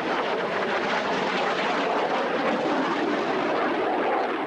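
Jet aircraft flying a display pass overhead: a steady rushing roar of jet engine noise that eases slightly near the end as the aircraft pulls away.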